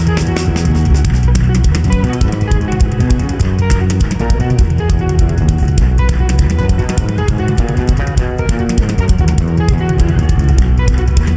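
Live gospel band playing an instrumental worship groove: drum kit with a steady beat, bass guitar and guitar.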